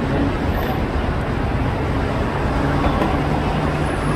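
Scania L113CRL city bus running, a steady engine hum under road and traffic noise. The hum settles into a steadier tone about halfway through.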